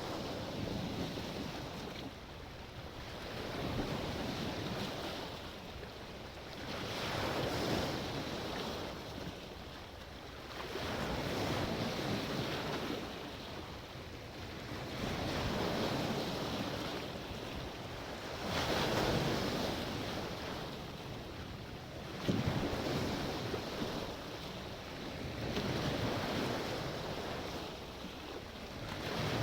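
Sea surf: waves breaking and washing in, the noise swelling and fading about every three to four seconds. One short, sharp knock about three-quarters of the way through.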